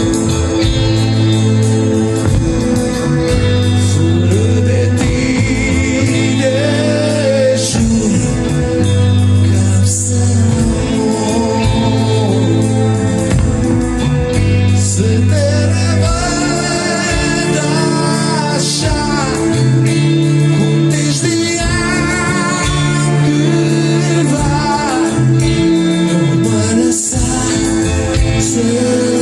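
Rock band playing live: loud music over sustained low bass notes, with a melodic line that wavers with vibrato.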